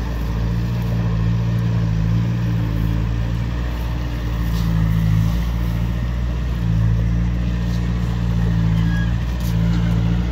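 An engine running steadily with a low hum, its note shifting briefly a few times.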